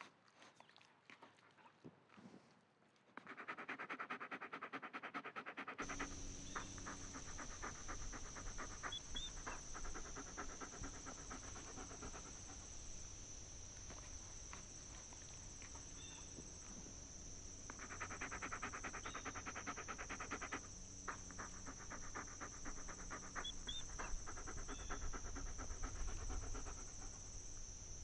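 A small terrier panting rapidly in two spells while it gnaws a bone, with scattered sharp clicks of teeth on bone in between. A steady high-pitched hum comes in about six seconds in.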